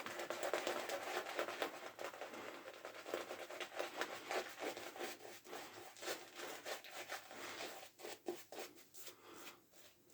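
Faint, quick scratchy rubbing of a wet shaving brush working lather, with many short strokes that thin out and stop near the end.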